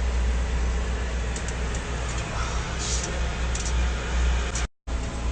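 2013 Volvo VNL semi truck's diesel engine idling with a steady low rumble, running after its burnt starter cable was replaced. The sound breaks off for a moment near the end.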